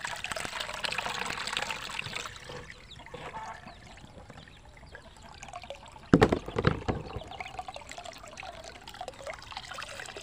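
Coconut milk pouring and trickling through a plastic strainer into a basin as grated coconut is wrung out by hand, strongest in the first few seconds. A loud thump comes a little after six seconds in.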